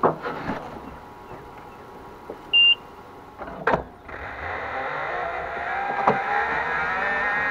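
A few knocks, then a short electronic beep about two and a half seconds in. From about four seconds the Greenworks Pro 60V electric zero-turn mower's drive motors whine, rising slowly in pitch as it pulls away towing a bundle of brush on a strap.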